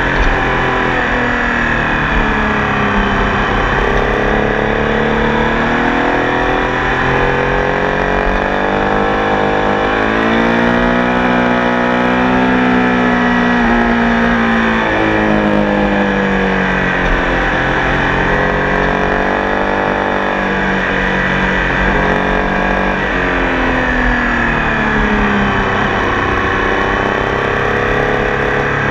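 Tiger Sport 800 motorcycle engine running steadily, its note climbing and falling slowly several times as the revs build and ease off.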